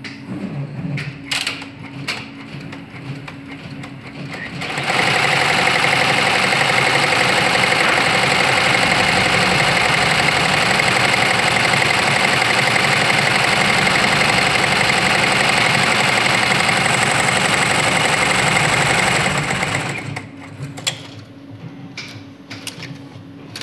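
ZSK multi-needle embroidery machine stitching: scattered clicks for the first few seconds, then about fifteen seconds of loud, rapid, steady stitching that stops abruptly, leaving scattered clicks again.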